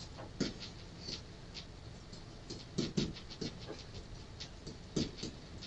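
Interactive whiteboard pen tapping and sliding on the board's surface during handwriting: a scatter of short, irregular clicks.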